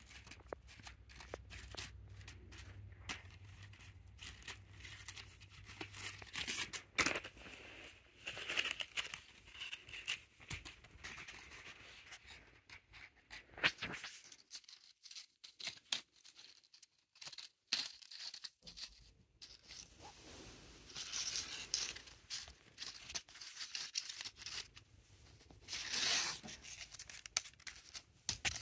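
Crumpled paper ball crinkling and crackling in irregular bursts as a kitten paws and bites at it, with a few seconds' lull about midway.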